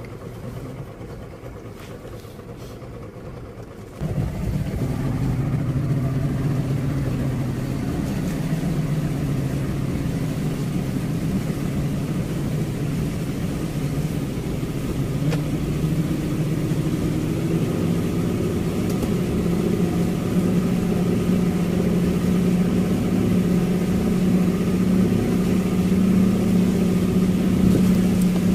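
Speedboat engine running steadily under way, its drone coming in suddenly about four seconds in after a quieter stretch, then slowly rising in pitch through the second half.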